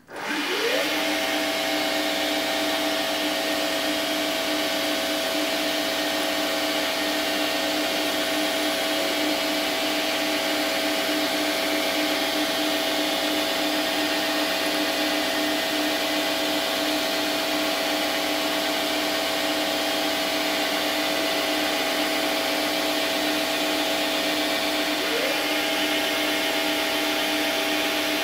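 A 10x22 metal lathe spins up with a whine that rises in pitch within the first second, then runs steadily with a hum of several steady tones while turning a W1 tool steel bar. It is the cutting pass for a chamfer. A brief rising whine comes near the end.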